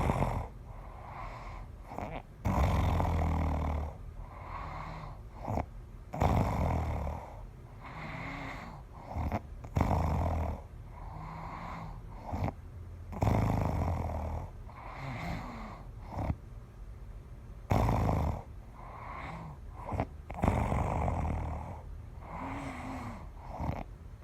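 A person snoring heavily and rhythmically, a loud, rough snore on each breath about every three to four seconds, with short snorts between. The snoring is bad enough that the uploader wonders whether it is time to see a doctor.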